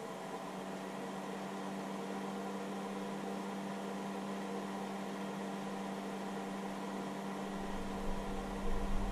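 Electronic battery charger's cooling fan running steadily under load, a hum with several steady tones over a light hiss. A low rumble comes in about seven and a half seconds in.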